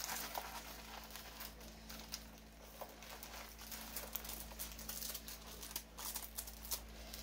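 Crinkling and rustling of plastic packaging as a diamond painting kit is handled and unwrapped, with irregular small crackles throughout.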